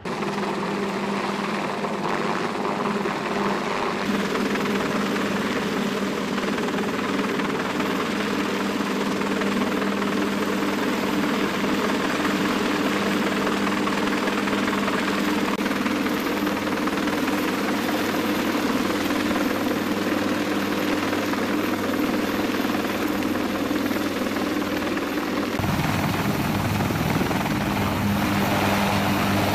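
UH-1Y Venom helicopter hovering: a steady rotor and turbine noise with a constant hum. About 26 seconds in, the low rotor sound grows much stronger as the helicopter is heard close by.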